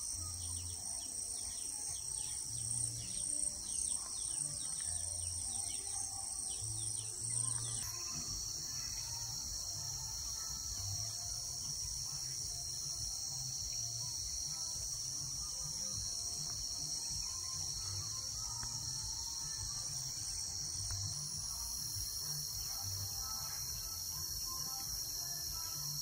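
Steady high-pitched chorus of chirring insects. A second, higher-pitched layer of the chorus stops about eight seconds in.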